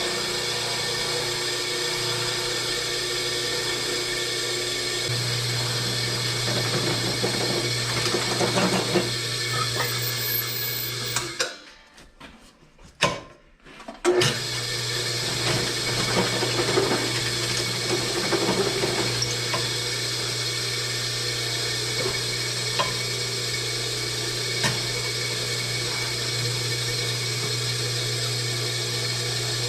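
Benchtop drill press running steadily, its bit drilling air holes into an exhaust pipe to turn it into a muffler. The motor drops out for about two seconds near the middle, then runs again.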